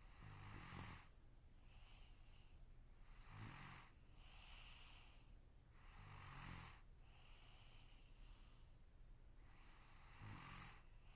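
A sleeping person snoring faintly: four snores about three seconds apart, with a soft airy breath between them.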